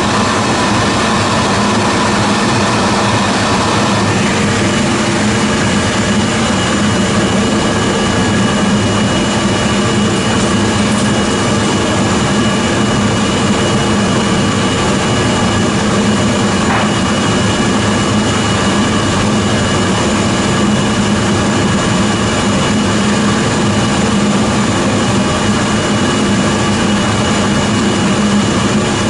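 Thickness planer running and planing a wide white oak board, a loud steady machine noise with a whine over it; the whine's pitch shifts about four seconds in.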